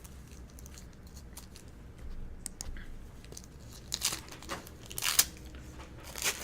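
Foil wrapper of a baseball card pack being torn open and crinkled. A few faint rustles come first, then sharp crackling from about four seconds in.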